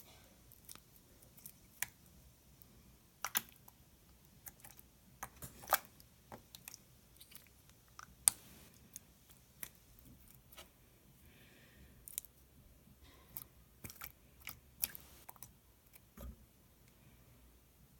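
Clear, jiggly jello-like slime being squeezed and played with by hand, giving sparse, irregular sharp clicks and pops.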